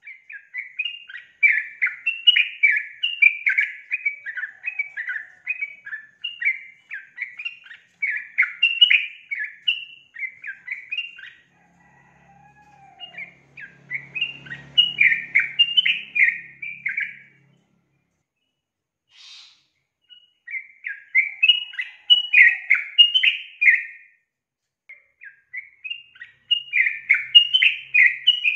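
A female yellow-vented bulbul (trucukan) giving its fast, bubbling chatter of short notes in four bursts, the first about ten seconds long, with short pauses between them. This female call is used as a lure to set males singing.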